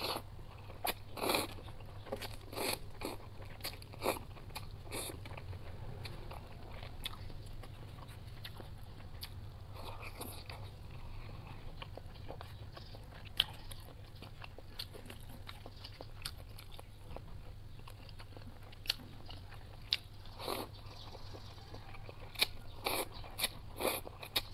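Close-up eating sounds of a person slurping and chewing instant cup ramen noodles: wet mouth clicks and smacks with a few short slurps, busiest near the start and near the end.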